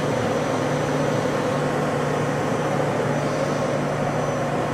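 Steady machine hum with a steady mid-pitched tone, from a powered-up but idle CNC vertical machining center and its auxiliary units.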